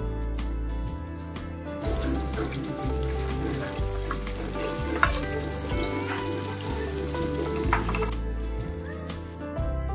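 Sliced onions sizzling in hot oil in a stainless-steel pressure cooker as they are stirred, the sizzle starting about two seconds in and dying down about eight seconds in. The spoon knocks sharply against the pot twice, under background music.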